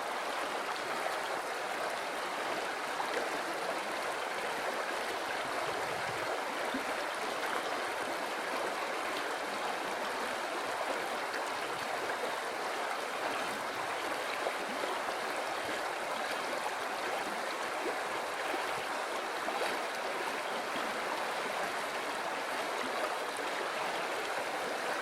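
River water flowing steadily over rocks, a constant rushing and gurgling.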